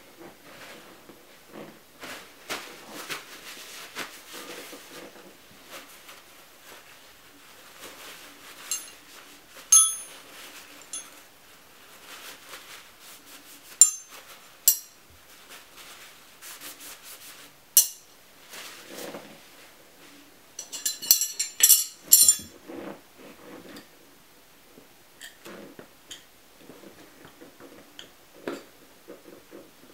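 Steel tyre levers clinking and ringing against each other as they are picked up and handled, with rubbing and rustling between the clinks. A quick run of clinks comes a little past the two-thirds mark.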